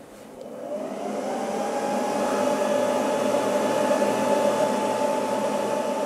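EcoFlow DELTA mini portable power station's cooling fans spinning up under a heavy load of nearly 1400 W from an electric kettle, building over about two seconds to a steady whooshing hum with a faint whine.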